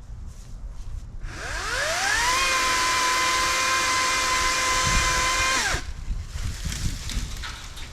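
Ryobi 40-volt brushless 14-inch electric chainsaw motor spinning up about a second in with a rising whine. It runs at a steady pitch for about three and a half seconds, then winds down and stops.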